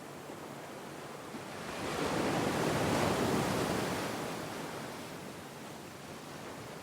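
Sea waves washing on the shore: a steady surf hiss in which one wave swells, breaks about two to three seconds in and washes back out.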